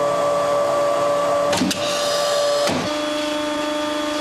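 High-pressure polyurethane metering and mixing machine running with a steady electric whine. Its pitch steps up at the start and drops back just before three seconds in, with clicks about a second and a half in and at the drop.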